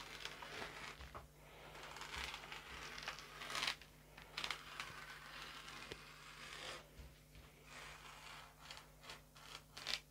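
Knife slicing through thin walnut veneer, with rustling of the veneer sheet: several scratchy cutting strokes, the loudest about a third of the way in, and a run of short ticks near the end.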